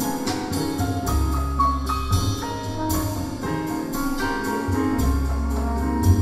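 Jazz band playing an instrumental passage: piano, upright bass, drum kit and hand percussion with a horn, over a steady rhythm of regular drum strokes and a deep bass line.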